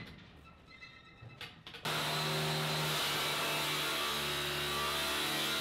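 Angle grinder cutting through a steel bulkhead plate to open a companionway, starting abruptly about two seconds in and then running as a steady grinding whine. Before it, only a few faint knocks.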